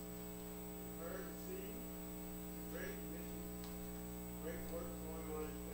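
Steady electrical mains hum on the sound system, with faint, distant voices now and then in the background.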